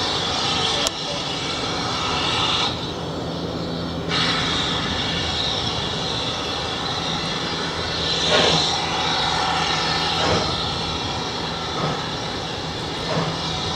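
A GWR 57xx pannier tank steam locomotive approaching out of sight round a curve: a steady rushing noise of the working engine, with a louder gust about eight seconds in.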